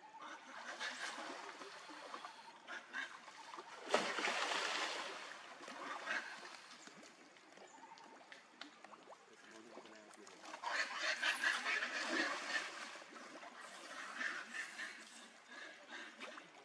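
Monkeys splashing in pool water, in irregular bursts: a sharp splash about four seconds in, and a longer spell of splashing about ten seconds in, with shorter splashes between.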